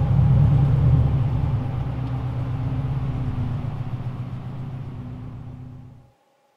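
Subaru Impreza WRX flat-four engine rumbling low and steadily, then fading away and cutting off suddenly near the end.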